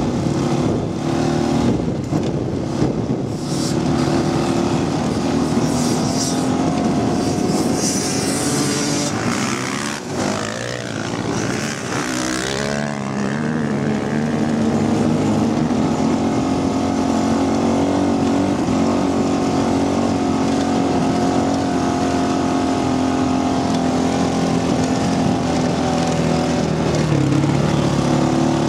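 Off-road motorcycle engines running. One nearby engine holds a steady note, and around ten seconds in the revs rise and fall over a rush of noise.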